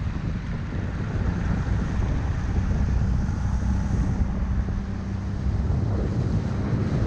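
Gheenoe LowTide 25 microskiff running at speed: wind rushing over the microphone and water hissing past the hull, over a steady low rumble.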